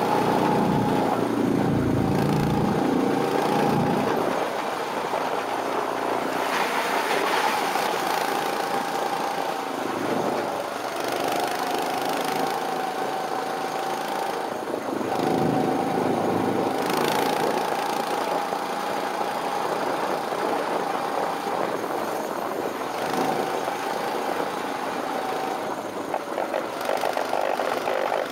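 Go-kart's small engine running steadily as the kart laps the track, its pitch sagging and picking up again a couple of times, with wind rumbling on the microphone in gusts.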